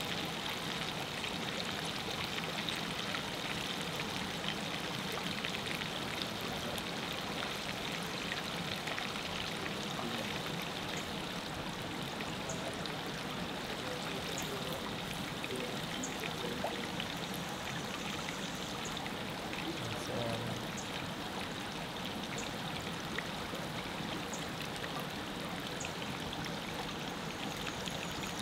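River water flowing with a steady, even rush.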